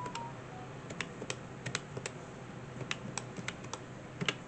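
Fingers tapping the plastic keys of a pink desktop calculator: a dozen or so light, irregular clicks as numbers are entered.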